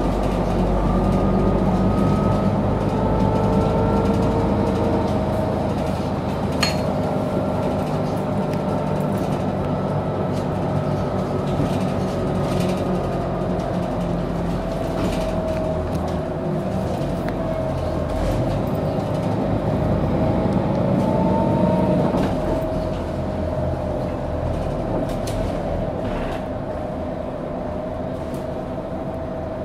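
Mercedes-Benz O530G Citaro articulated bus heard from inside the cabin while under way: a steady low engine and drivetrain drone, with transmission whines gliding up and down in pitch as the bus speeds up and slows. A single sharp click about seven seconds in.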